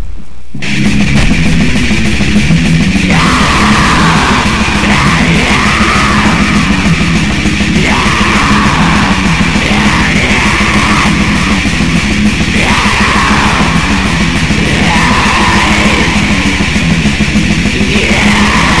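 Heavy metal song: the full band comes in loud with electric guitars about half a second in, over a fast, steady beat.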